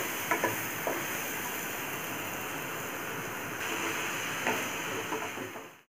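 Spinach, mushrooms and garlic sizzling in butter in a frying pan, a steady hiss, while a wooden spatula stirs them with a few light scrapes and taps against the pan. The sound cuts out just before the end.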